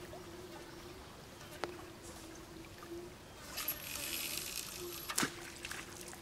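Spinning rod cast from a small boat: line hisses off the reel for about a second and a half, then the reel gives a sharp click, the loudest sound, as the bail closes. A faint steady hum runs underneath.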